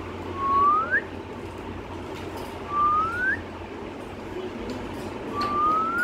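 Alexandrine parakeet whistling: three short rising whistles, about two and a half seconds apart.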